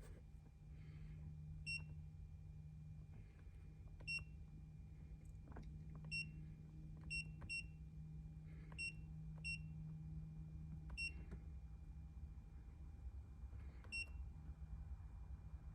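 Handheld OBD scan tool beeping briefly at each button press as its menus are worked, about nine short high beeps at uneven intervals, over a steady low hum.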